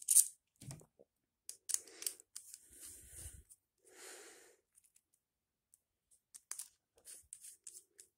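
Allen key and small screws clicking and scraping against a metal holster hanger as the cross bolts are put back in. Irregular short clicks and rasps, loudest right at the start, with a cluster of quick ticks near the end.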